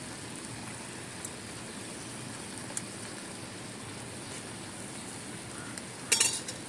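Steady, even outdoor background hiss with no clear source, then a short clatter of metal on metal near the end as a ladle and dishes are handled.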